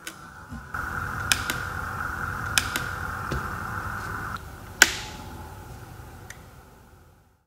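Sharp clicks of a Leister Hotwind System's rocker switch being pressed and released to step through its settings. They come in two quick pairs, then one loudest click near five seconds in and a faint last one. A steady whirring hum runs underneath and fades out near the end.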